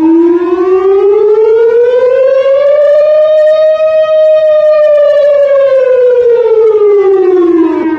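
Civil defence warning siren sounding in a test: one long wail that rises in pitch for about four seconds and falls back over the next four, fading out near the end.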